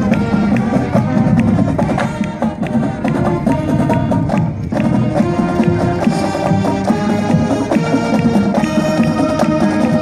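High school marching band playing a tune while marching: flutes, clarinets and saxophones carry the melody over a drum beat.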